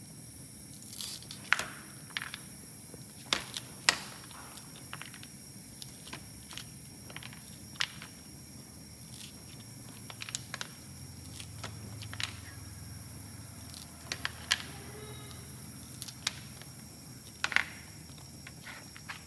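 A knife working through ears of corn: scattered sharp clicks and crunches, a dozen or so at uneven intervals.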